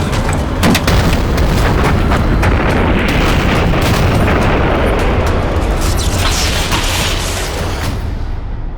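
Battle sound effects from a war film: a long, heavy explosion rumble with sharp cracks in the first couple of seconds, fading away near the end.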